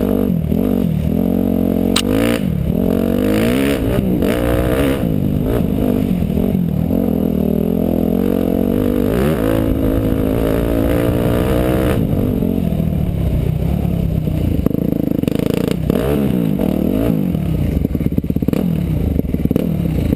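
Motorcycle engine being ridden hard, its pitch rising and falling again and again as the throttle opens and closes, with a few sharp knocks along the way.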